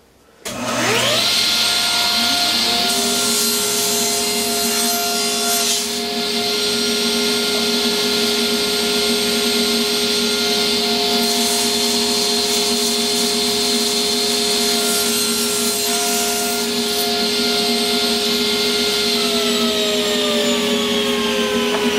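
Table saw switched on and running up to speed, its blade cutting through small wooden end blocks on a crosscut sled several times. Near the end part of the motor note starts falling as the saw winds down, while a steady machine sound carries on.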